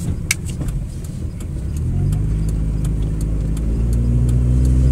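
2003 Mitsubishi Lancer ES 2.0 L SOHC engine running while driving, heard from inside the cabin: a low steady drone that grows louder from about two seconds in, with light ticks throughout. The engine has a cylinder 2 misfire.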